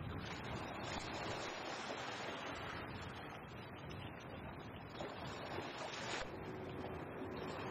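Small sea waves washing against shoreline rocks, surging and easing, with wind rumbling on the microphone.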